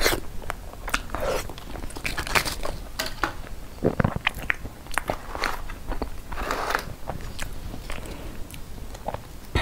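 Close-miked eating: a bite, then steady chewing of soft pastry with many small wet clicks and crackles from the mouth. Near the end a thin plastic dessert tray crinkles as the next piece is lifted from it.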